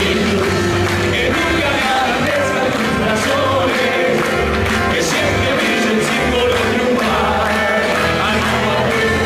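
Loud music with singing, many voices together in chorus over a steady bass line.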